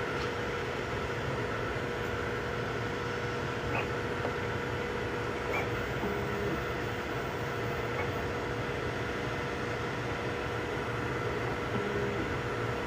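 3D printers running mid-print: a steady whir of cooling fans with a steady motor tone and a few faint clicks.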